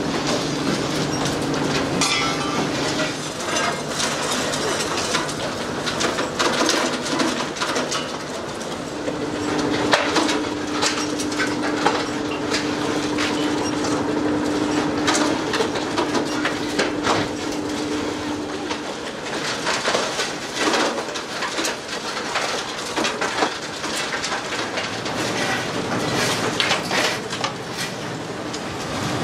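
Stone-crushing plant machinery running: a steady mechanical rumble with constant clattering and knocking of rocks through the crusher, chute and conveyor. A steady hum runs over it for several seconds in the middle.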